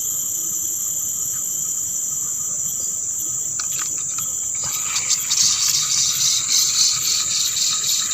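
Steady high-pitched buzzing of insects in a chorus. From about five seconds in, a louder rushing hiss with an uneven flutter joins it.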